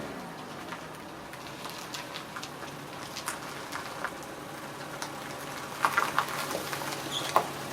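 Honda Accord Hybrid V6 engine running at idle: a faint steady low hum under a crackling haze, with irregular sharp clicks and ticks, a few louder ones near the end.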